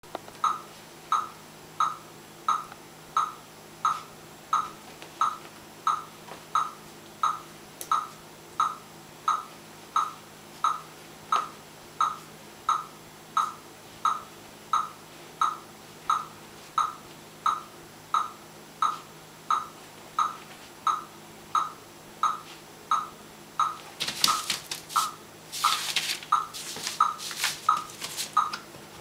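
A short, high, pitched beep or chirp repeating evenly about one and a half times a second. From about 24 seconds in, newspaper crinkles and rustles under a puppy's feet.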